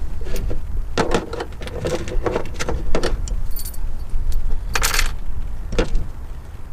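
The new throttle position sensor's small retaining clips clinking and rattling as they are taken out of their packaging, in a handful of separate clicks and jingles.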